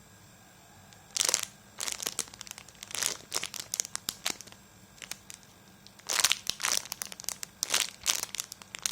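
Plastic crinkling and rustling in irregular short bursts as it is handled, starting about a second in.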